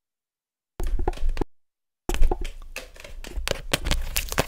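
Long fingernails tapping and scratching on a plastic sunscreen tube close to the microphone, with low handling thumps. A short cluster of taps starts about a second in, breaks off for half a second, then becomes a fast run of taps.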